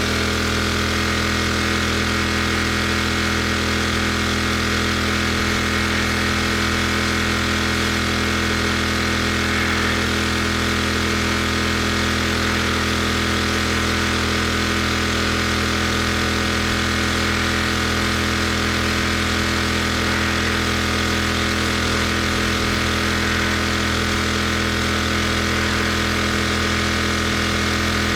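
Gas engine of a pressure washer running steadily, with a hiss of spray over it.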